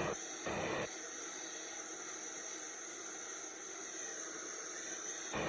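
A steady hiss, with a brief louder rustle about half a second in and another near the end.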